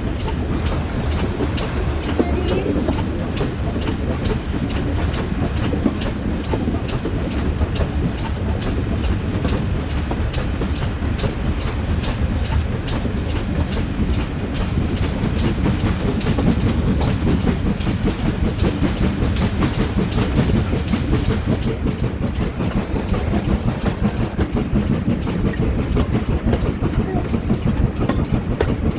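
Train carriages running along the track: a steady rumble with wheels clicking over the rail joints, and a brief hiss about a second in and again near the 23-second mark.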